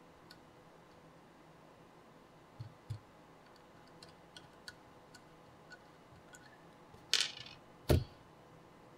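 Faint scattered clicks and ticks from a small brushless quadcopter motor being turned by hand to set its spin direction, with a short hiss about seven seconds in and a sharp knock just after.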